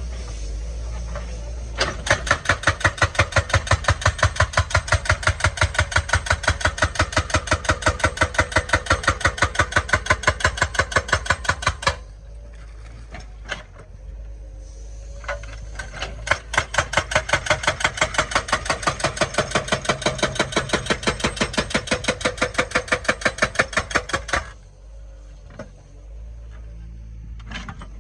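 Excavator-mounted hydraulic breaker hammering in two long bursts of rapid, even blows, about five a second, with the excavator's diesel engine running steadily underneath; the hammering stops for a few seconds in between.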